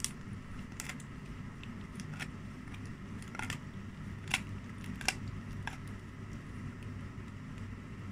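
A husky chewing a dried, furry lamb ear with its back teeth, giving irregular sharp crunches as the dry skin cracks: about seven in the first six seconds, the loudest two near the middle. A steady low hum runs underneath.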